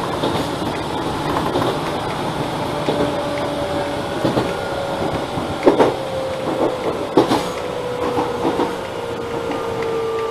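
Enshu Railway 1000-series electric train running, heard from the cab: steady rolling noise with wheels clacking over rail joints and a few sharp knocks in the second half, and a whine that slides slowly lower in pitch.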